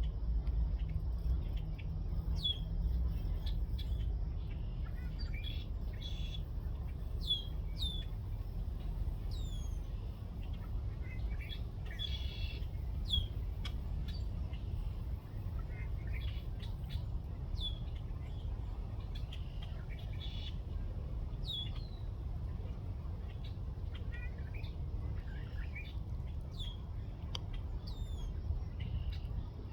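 Small birds calling over and over, each call a short chirp that drops quickly in pitch, over a steady low rumble.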